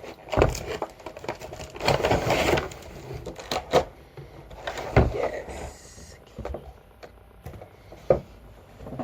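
Cardboard packaging of a box ukulele kit being handled and opened: irregular knocks and thumps with a stretch of rustling and scraping about two seconds in.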